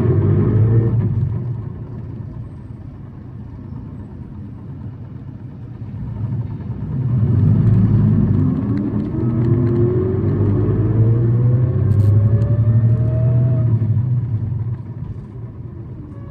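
City bus engine running, with a rising whine climbing steadily in pitch as the bus accelerates from about six seconds in, falling away at about fourteen seconds as it eases off. This bus is known for running at high revs and making an abnormal noise.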